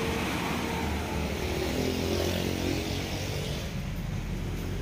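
Steady low hum of a vehicle engine running.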